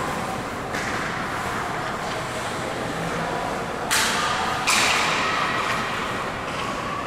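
Ice hockey play at rinkside: a steady wash of skate blades on the ice and rink hall noise, with sharp skate scrapes with a trailing hiss a little under a second in and again about four and five seconds in.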